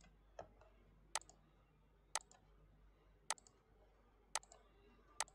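Computer mouse clicking: single faint clicks about once a second, six in all, the first one weaker.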